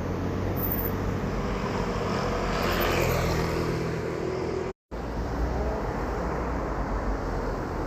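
Steady low rumble of a car's road and engine noise heard from inside the cabin while driving. The sound cuts out completely for a moment about five seconds in.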